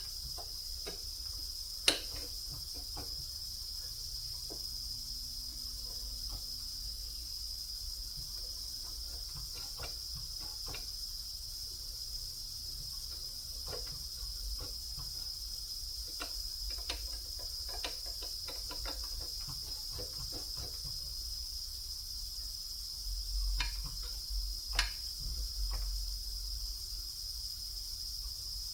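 A steady high-pitched whine runs under scattered light clicks and knocks from tools and parts being handled at a milling machine. There is a sharp click about two seconds in and a short cluster of knocks near the end.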